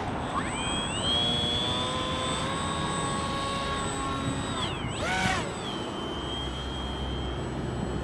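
Bixler 2 electric RC plane's motor and propeller whining in flight. The pitch climbs to a steady high whine about a second in, falls sharply as the plane passes close about five seconds in, then holds a steady, slightly lower whine. Wind rumbles on the microphone.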